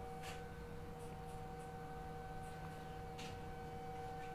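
Steady electrical hum in an airliner cabin: a low drone under a few clear, unchanging whining tones, with two brief faint brushing noises about a quarter second and three seconds in.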